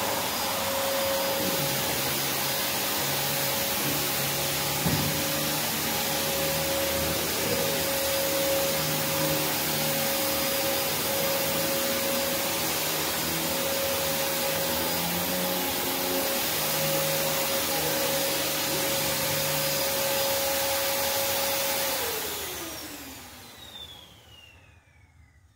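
Prolux X8 Elite corded backpack vacuum running steadily with a high motor whine. It is shut off near the end, and the whine falls in pitch as the motor spins down to near quiet.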